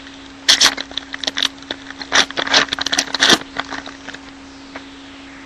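Trading cards being flipped through by hand: a quick run of crisp snaps and rustles of cardboard from about half a second in until about three and a half seconds, over a steady low electrical hum.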